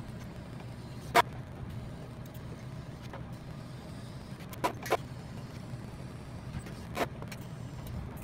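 TIG welding on 16-gauge cold-rolled steel sheet metal: a steady low hum from the welder, with a few sharp clicks, one about a second in, two close together near five seconds and one near seven seconds.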